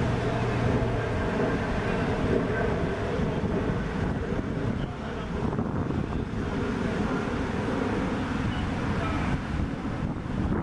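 Wind buffeting the microphone, a steady rumbling noise, with a faint low hum that fades out about a second in.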